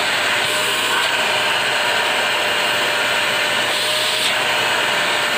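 Jinke JK-2 handheld electric vacuum cleaner running steadily, switched on with its body button: an even, loud rushing of motor and airflow.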